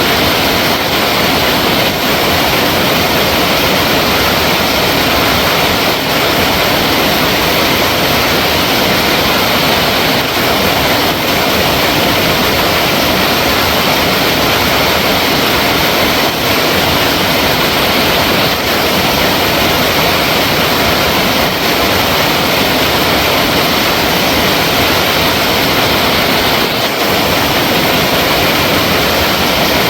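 Flowing water: a loud, steady, even rush with no breaks or changes.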